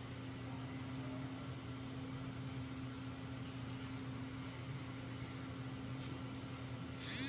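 Steady low hum with a faint even hiss: background room tone, with no distinct event.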